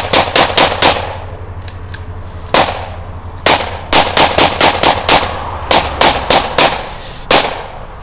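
Gunfire: about eighteen sharp shots in quick strings. There are five in the first second, a single shot, a run of seven, a run of four and a last single shot near the end.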